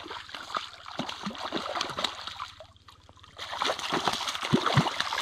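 Water splashing and sloshing beside a canoe as a hooked brown trout thrashes at the surface, getting louder near the end with a couple of low knocks.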